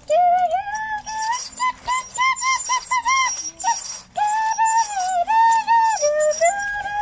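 A young child humming or crooning a wordless tune in a high voice, held notes stepping up and down with quick little repeated notes in the middle.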